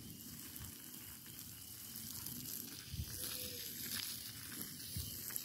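Steady hiss and sizzle of water from a garden hose landing on a burning pile of cardboard and its embers, as the fire is put out.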